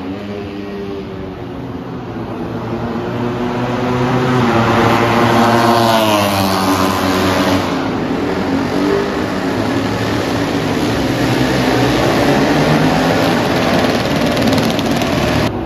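Racing motorcycle engines at high revs on track, the pitch rising and falling as bikes accelerate and pass. The sound grows louder over the first few seconds and is loudest about five to seven seconds in.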